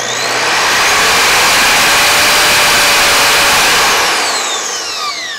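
Evolution R255SMS 10-inch sliding miter saw running free with no cut. Its soft start brings the motor up to full speed early on, it holds a steady pitch, then about four seconds in the pitch falls as the blade spins down.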